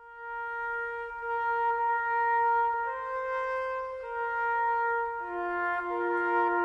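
Orchestral film-score music: slow, sustained held notes, a single note joined by a second about three seconds in and a third about five seconds in, building into a chord.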